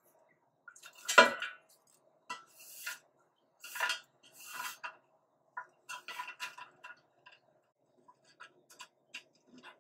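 LED strips being handled and laid onto a sheet-metal light-fixture reflector: a sharp clattering knock about a second in, then scattered lighter clicks, taps and rustles as the strips are moved and pressed into place.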